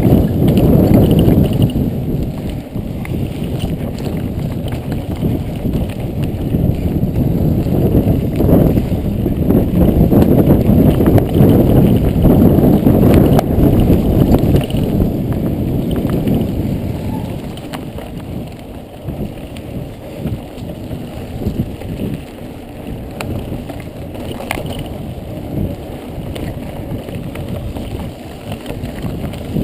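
Mountain bike riding fast along a dirt trail: a continuous rumbling rush of wind and tyre noise with scattered clicks and rattles from the bike. It is louder through the first half and eases after about seventeen seconds.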